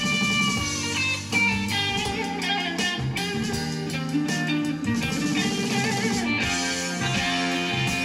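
Guitar-led music in a blues-rock vein played back over a hi-fi system through a pair of modified Dynaudio 1.3 MkII bookshelf speakers.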